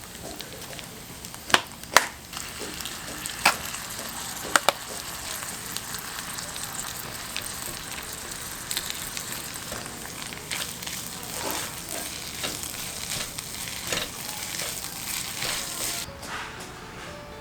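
Battered jeon frying in oil in a pan: a steady sizzle with fine crackling. A few sharp knocks come in the first five seconds, and the high hiss falls away near the end.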